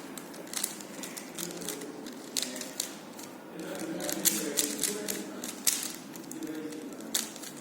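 Rubik's cube being turned quickly by hand: rapid, irregular clicking of the plastic layers as they turn.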